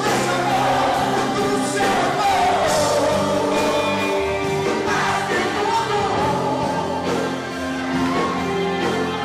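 Live gospel worship music: a man singing into a microphone over a band, with sustained, gliding vocal lines.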